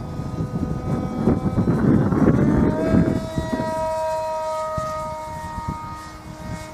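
Model plane's motor and propeller whining: the pitch rises about a third of the way in, then holds steady. Wind buffets the microphone underneath.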